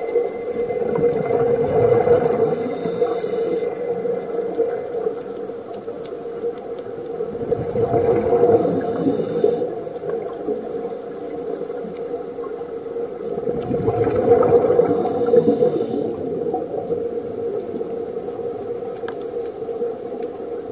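Scuba diver breathing through a regulator underwater, heard from the camera: three breaths about six seconds apart, each a rumble of exhaled bubbles with a short hiss of inhaled air, over a steady hum.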